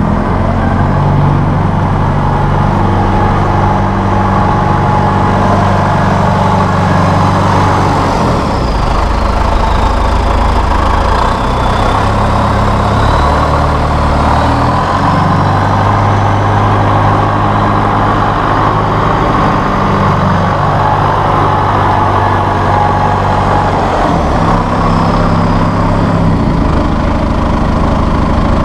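John Deere 5101E tractor's 4.5-litre PowerTech diesel engine running as the tractor is driven around. Its note steps up and down several times, and a faint high whine dips and rises as it passes.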